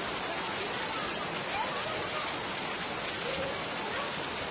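Heavy rain pouring down: a steady, even hiss that does not change.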